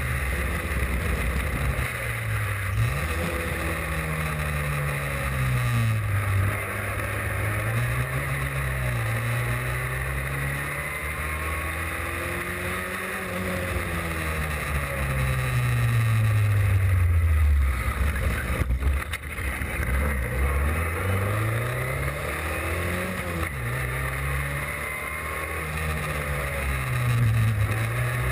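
Austin Seven race car's four-cylinder side-valve engine at racing speed, heard from on board: the engine note climbs and drops over and over as it accelerates, shifts gear and slows for corners.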